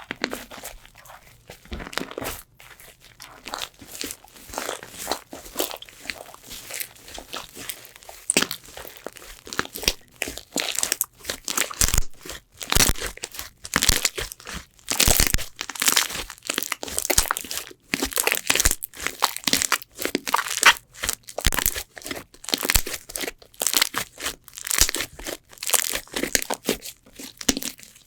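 Slime being squeezed and stretched by hand, making dense, irregular crackling and crunching that grows busier and louder about a third of the way in.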